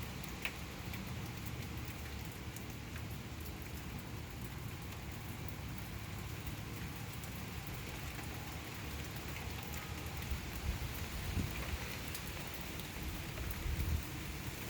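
Steady rain falling outside during a thunderstorm, a constant hiss of rain with scattered sharp drip ticks. A few louder low thumps come near the end.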